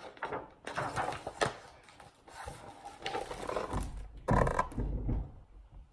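Pages of a hardcover picture book being turned and the book handled close to the microphone: uneven paper rustling and rubbing, with a louder bump of handling noise a little past the middle.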